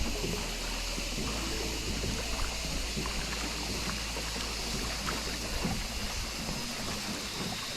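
Small rowed river boat under way: oars dipping and water splashing and trickling along the hull in many small irregular splashes over a steady hiss, with a low rumble that stops near the end.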